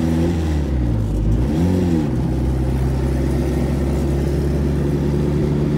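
Turbocharged H22-swapped Honda Civic EK coupe engine heard from inside the cabin while driving: the revs fall over the first second, rise and dip again briefly, then hold steady. It runs smoothly without breaking up.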